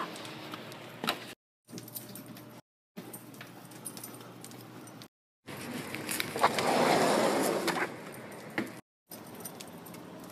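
A large dog walking through a doorway onto a tiled floor: scattered light clicks and jingles from its claws and collar tags, in short clips broken by brief silent gaps. A louder rushing noise lasts about two seconds, starting about five and a half seconds in.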